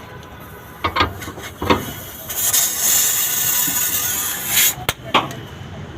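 A few sharp knocks, then a loud high-pitched hiss lasting about two and a half seconds, then two more knocks.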